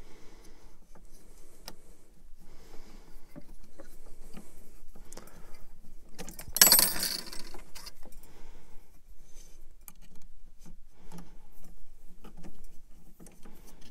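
Small metal clicks and scrapes of a wrench working the M5 bolts loose on an Ender 5's metal carriage plate, with one louder metallic clatter about halfway through.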